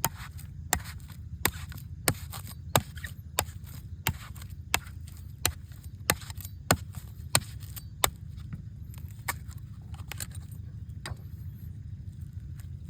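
Sharp strikes on an old coconut, about one and a half a second in a steady rhythm for about eight seconds, then two more spaced apart, over a steady low rumble.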